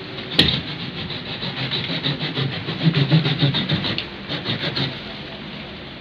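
Hand pruning saw cutting through a thin tree trunk in quick back-and-forth strokes, several a second, fading out near the end. A sharp crack about half a second in is the loudest sound.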